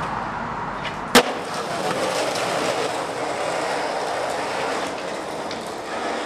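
Skateboard grinding along a ledge, then one sharp clack about a second in as the board lands. After that the wheels roll steadily on concrete.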